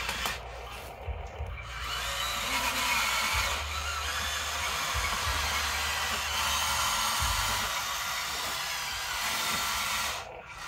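Small electric motors and gears of a radio-controlled toy excavator whirring steadily as it drives on its tracks and works its arm. The whir drops briefly about a second in and again near the end.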